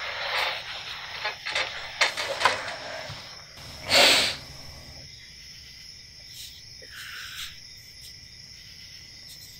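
Crickets chirping steadily in the background, with soft rustling movements as two people embrace, and one short loud rush of noise about four seconds in.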